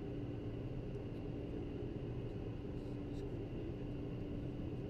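Steady cockpit noise of a private jet in flight on approach: rushing airflow with a constant low engine hum, heard from inside the cockpit.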